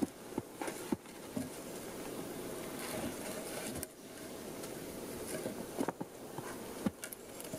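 Snow-covered wooden poles knocking and scraping as they are lifted off a stacked-log wall, with a steady rustle and a few sharp knocks spread through.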